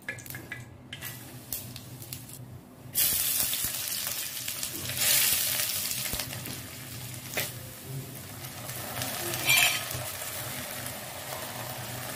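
Chopped onions and cumin seeds frying in hot oil in a pot: the sizzling starts suddenly about three seconds in and goes on steadily, with a few louder scrapes of stirring.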